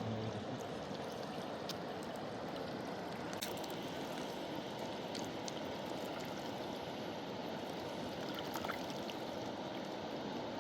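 Fast mountain river rushing steadily over rocks, an even roar of running water.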